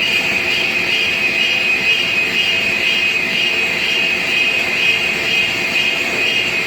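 Metal lathe taking a heavy roughing cut: a steady high-pitched cutting whine that swells and fades about one and a half times a second, over the running machine.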